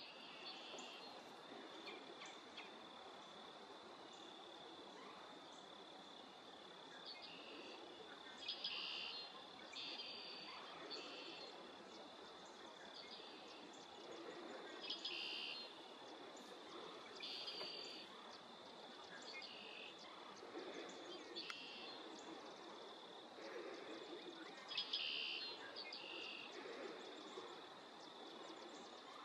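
Faint outdoor ambience: a steady, high insect drone, with short, louder high calls breaking in every few seconds.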